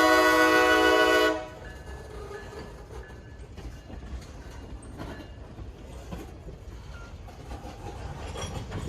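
Locomotive air horn sounding a loud, steady chord that cuts off just over a second in, followed by the much quieter rolling noise of the train with scattered faint clanks.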